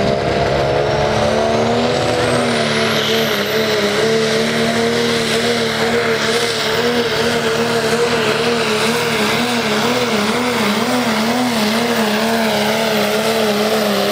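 Diesel pickup truck at full throttle pulling a weighted sled, its engine running hard under heavy load, with a high turbo whistle climbing steeply over the first few seconds. The engine note wavers up and down as the truck bounces down the track and drops slightly near the end as it comes off the throttle.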